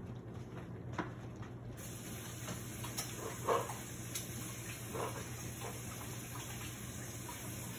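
Kitchen tap running as hands are washed, with a few faint knocks and clinks.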